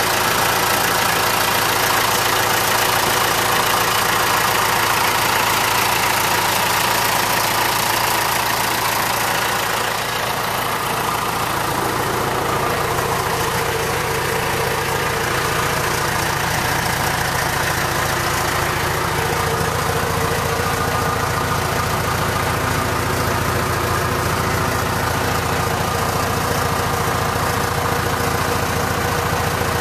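John Deere 4045 four-cylinder diesel engine of a 2002 John Deere 310G backhoe running steadily. Its note changes about ten seconds in and becomes heavier and lower.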